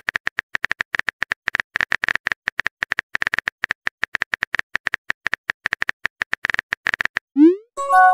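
Rapid keyboard-tap clicks of a texting app's simulated typing, several a second, as a message is typed out. Near the end, a short rising whoosh and a brief chime of several steady tones: the message-sent sound.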